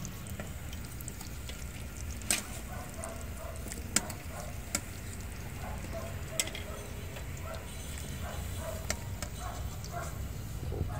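Kofta frying in a large pot of oil over a steady low rumble, with a metal skimmer clinking against the pot about five times.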